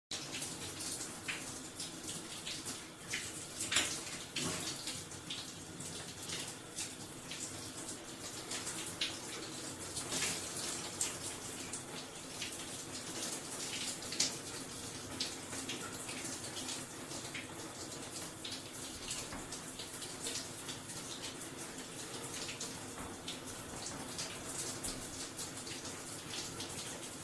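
A bathroom shower running: a steady hiss of falling water, with many small splashes and drips scattered through it.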